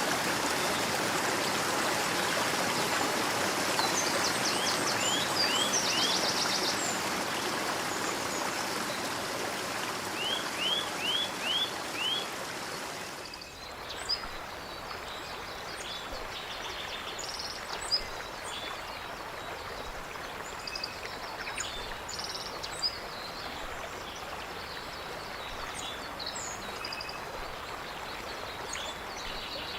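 Stream water rushing steadily, with small birds chirping short rising notes and a quick trill over it. About halfway through, the sound cuts to a quieter background where many small birds call and chirp.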